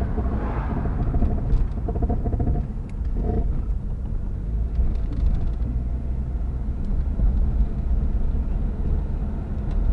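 Jeep Grand Cherokee 4.0 L inline-six engine running while driving, heard from inside the cabin as a steady low rumble.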